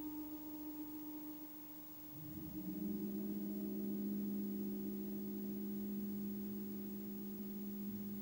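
Background music of slow, held ringing tones. The first tone fades over the first two seconds, then a lower chord slides up into place and holds.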